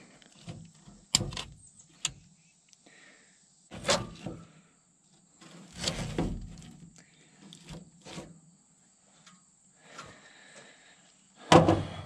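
Hands working a truck's rear wiring harness open: a scatter of separate clicks, knocks and short rustles of wires and plastic loom being pulled and shifted, with a louder knock near the end.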